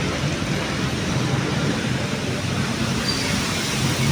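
Steady city road traffic: motor vehicle engines running, with tyre and road noise.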